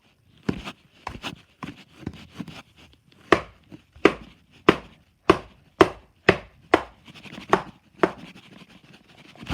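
A plastic Play-Doh tool chopping down onto a plastic play tray: a few softer, uneven knocks, then a steady run of sharp strokes about two a second, each with a short plastic ring.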